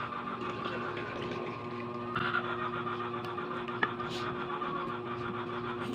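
Juice poured from a carton into a glass mug, followed by a single sharp click of a fork against a bowl about four seconds in, over a steady low hum.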